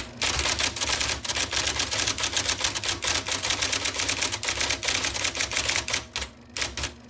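1979 IBM Selectric II electric typewriter typing fast: a rapid, unbroken clatter of type-ball strikes over the steady whirring of its motor, with a short pause about six seconds in before a few more strikes.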